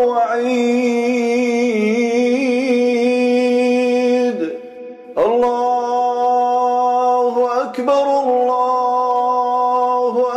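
Male voice reciting the Quran in a melodic, chanted style, drawing out the verse's last word, 'wa'id', in a long ornamented note. After a short break about four and a half seconds in, he holds another long, steady note.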